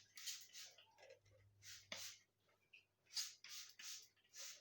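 Disinfectant spray going on in a series of short, faint hisses, several quick squirts one after another.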